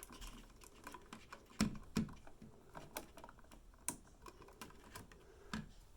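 Light, irregular clicks and taps of hands working stiff electrical wires and small plastic wire connectors while joining a dimmer switch lead.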